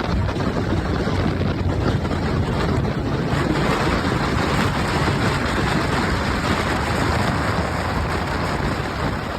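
Steady wind rushing over the microphone of a moving motorcycle rider, with low road and engine rumble underneath.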